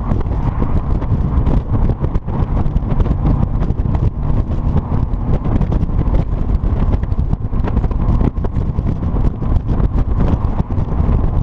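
Triumph TR7 V8's 3.9-litre Rover V8 engine running steadily through a single-bore exhaust, a loud, low-pitched rumble that keeps an even level.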